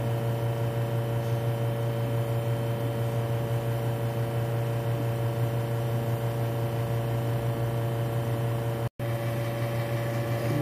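Espresso machine humming steadily while pulling a single shot of espresso into a mug. The hum cuts out completely for an instant about nine seconds in.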